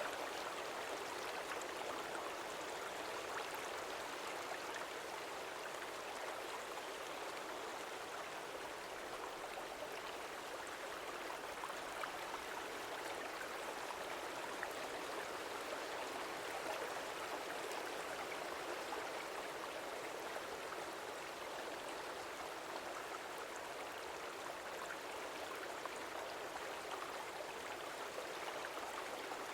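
Stream water flowing steadily: an even, unbroken rush with little bass.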